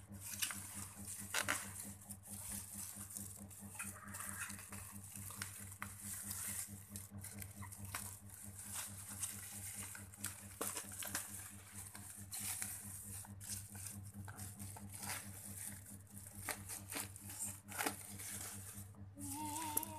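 Black plastic bag and bubble-wrap packaging crinkling and tearing as it is cut open with scissors, with irregular snips and rustles over a steady low hum.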